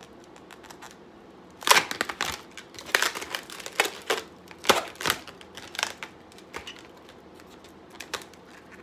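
Twisting balloons being twisted and squeezed by hand: a run of short, sharp latex squeaks and rubs that starts about a second and a half in and thins out to a few clicks near the end.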